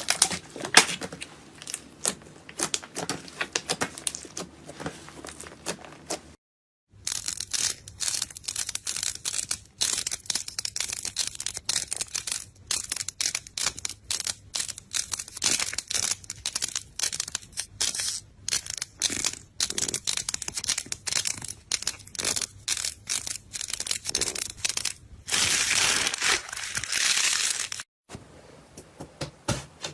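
Slime squeezed and pressed by hand, with a dense, irregular run of crackling and popping clicks. There is a short silent break about six seconds in.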